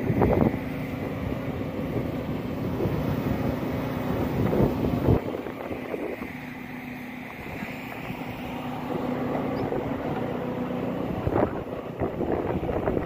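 Concrete pump truck's engine running at a steady pitch, with wind buffeting the microphone in gusts.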